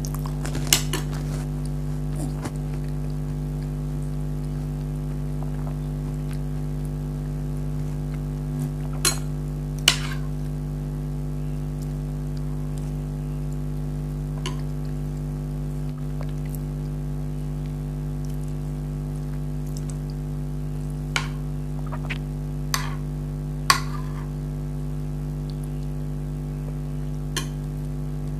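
A spoon clinking against a dish a handful of times, in sharp separate taps spread out with long gaps, over a steady low hum.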